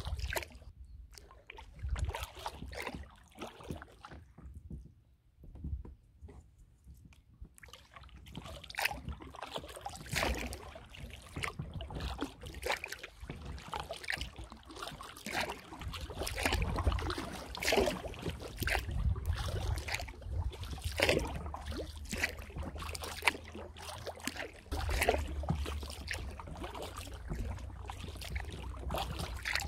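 Kayak paddle strokes in calm water: the blade dips, splashes and drips, with water trickling and sloshing at the hull, over a low rumble. A short lull a few seconds in.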